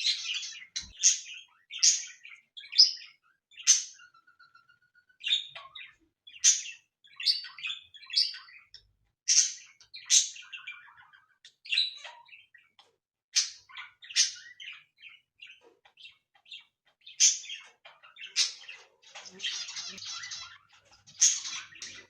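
Cockatiels chirping and calling, sharp high calls coming about once a second, with a short steady whistle about four seconds in and a longer harsh call near the end.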